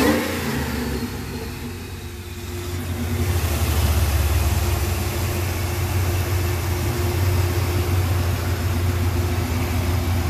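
Supercharged 5.4-litre V8 of a Ford F-150 SVT Lightning settling back to idle right after a throttle blip for the supercharger whine. It then idles steadily, a little louder again about three seconds in.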